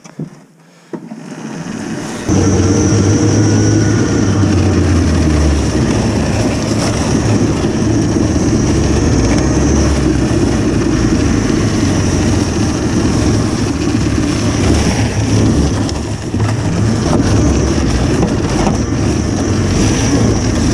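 Home-built electric snowmobile under way on a snow trail: a steady running noise from the track and drivetrain. It is quieter at first and turns loud about two seconds in, then holds steady.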